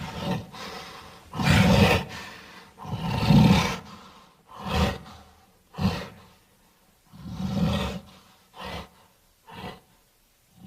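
A cartoon character's voice making a string of short, caveman-like grunts and growls, about nine separate outbursts with brief pauses between them.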